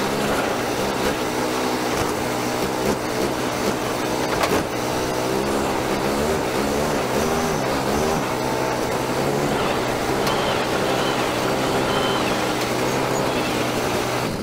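420cc Predator single-cylinder four-stroke petrol engine running on an amphibious ATV boat driving across grass, its pitch rising and falling as the throttle changes.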